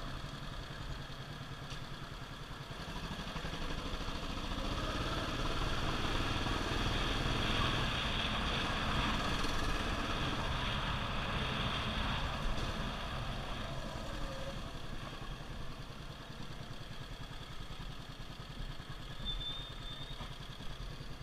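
Motorcycle engine running during a slow ride through town. It grows louder over the first few seconds, then eases off toward the end as the bike slows.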